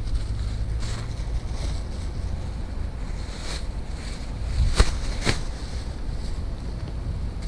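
Steady low rumble with scattered light rustles and clicks, and two sharp knocks about half a second apart near the middle.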